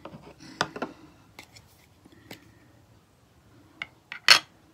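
Scattered light clicks and taps of a clear rubber stamp and an ink pad being handled on a wooden table, with one sharper click near the end.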